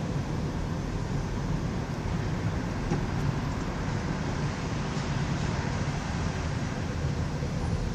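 Steady low rumble and noise of vehicles crossing the Williamsburg Bridge, with no distinct events standing out.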